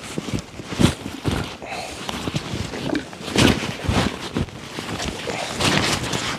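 Irregular rustling and crunching as a backpack is pressed down and shifted on a plastic emergency bivy lying on snow. The rustles come in uneven bursts, the loudest about three and a half seconds in.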